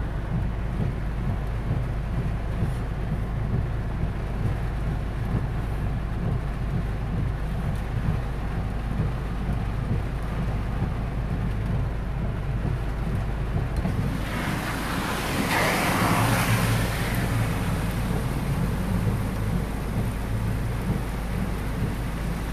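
Heavy rain drumming on a car's roof and windscreen, heard from inside the car as a steady low rumble. About 14 s in, a car drives past through the floodwater, and its spray rises to a rushing hiss for about three seconds, then fades.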